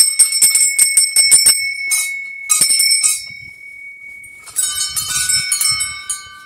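Temple bells being rung. One bell is struck rapidly, about six times a second, for the first second and a half; a few more strikes follow and it rings out slowly. About four and a half seconds in, a second, lower-pitched bell clangs for about a second.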